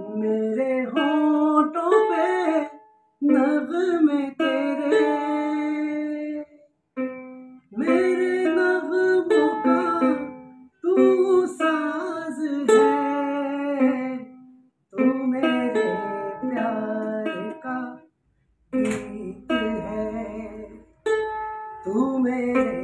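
A ukulele played with a man's voice singing along, in phrases broken by short pauses.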